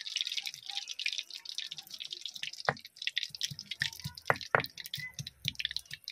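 Stone muller knocking against a flat stone grinding slab (sil-nora) as garlic cloves and ginger are crushed, in a run of knocks from about halfway, a few of them sharp and loud. Before the knocks there is a steady crackling high hiss.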